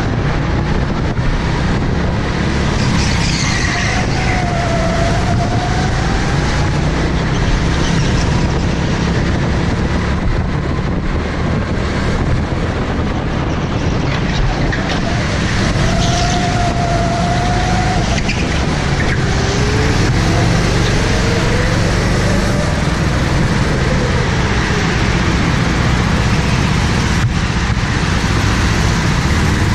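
Go-kart engine running hard, heard from the kart itself as it laps, with a few brief high-pitched squeals in the corners.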